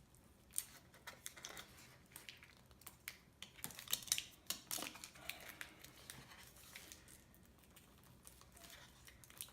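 Faint scattered clicks, scrapes and crackles of a swollen, glued-in MacBook Pro battery being pried and pulled out of its case by hand. The sounds are thickest about four seconds in.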